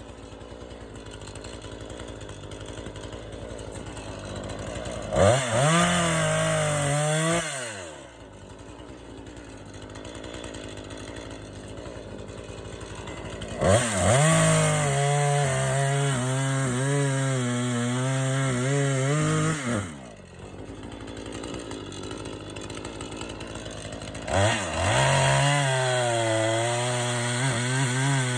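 Gas chainsaw idling between cuts and revving up to cut a log into lengths. There is a short rev about five seconds in, then a longer cut of about six seconds in the middle with the engine pitch wavering under load, and another cut starting near the end.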